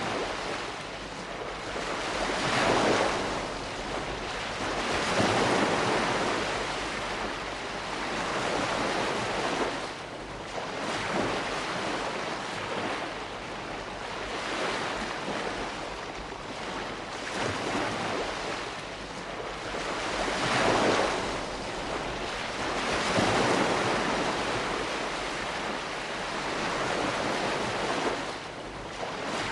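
Calm sea wash: small waves washing in and drawing back, the hiss of water swelling and easing every few seconds.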